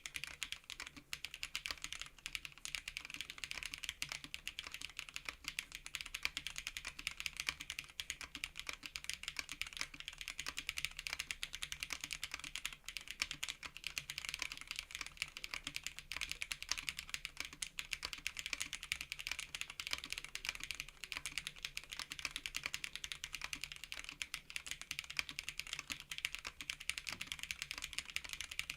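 Steady, fast typing on a JRIS65 R2 custom 65% mechanical keyboard with WS Jade linear switches: a dense, unbroken stream of keystroke clacks.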